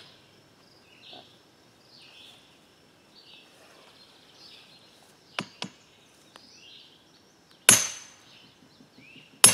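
Sledgehammer striking the drive cap on a steel well pipe, driving a sand point deeper into the ground: two light taps just after halfway, then two hard blows about a second and a half apart near the end.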